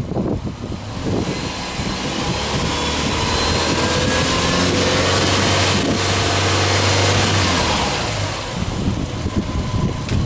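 Subaru Impreza WRX STI's turbocharged flat-four boxer engine revved with the car standing still. It climbs from idle over a couple of seconds, holds at high revs for a few seconds, then drops back to idle near the end.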